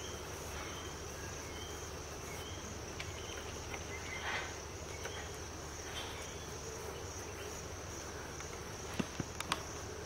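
Insects trilling in a steady, continuous high buzz, with a few sharp clicks near the end.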